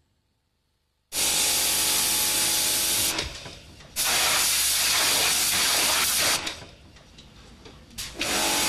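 Handheld hose spray nozzle spraying water onto a car being washed, in two long, steady hissing bursts with a short pause between them.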